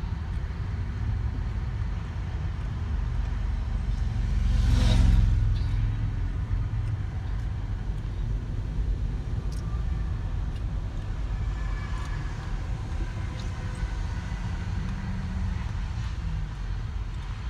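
Steady low rumble of road noise from a vehicle travelling on a highway. A louder whoosh swells and fades about five seconds in.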